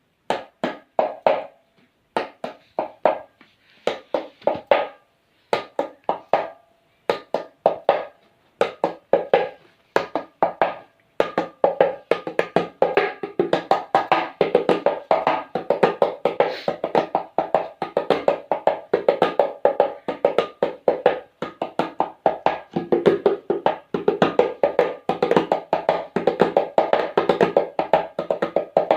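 Hand percussion playing a rhythm that imitates a train starting: short groups of strokes with pauses at first, quickening about eleven seconds in into a fast, unbroken beat like a train gathering speed.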